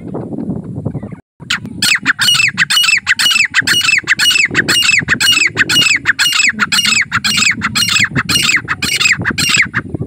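Grey francolin calling: a fast, even series of loud notes, about three a second, each sliding down in pitch, starting about two seconds in and stopping just before the end.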